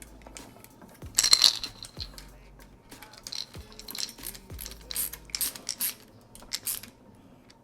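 Small irregular metallic clinks and scrapes of a screwdriver and bare copper ground wire against a light switch's ground screw and metal mounting strap, the loudest cluster about a second in.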